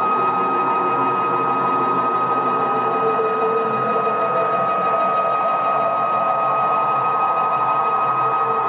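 Stepper motors of a CNC router table driving the axes on rapid moves, giving a steady high whine with a constant level and no breaks.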